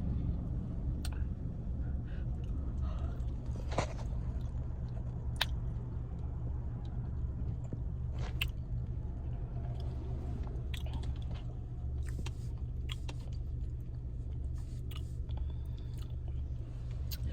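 Close-miked chewing and biting of crunchy fried food, with scattered sharp crunches and mouth clicks over a steady low hum.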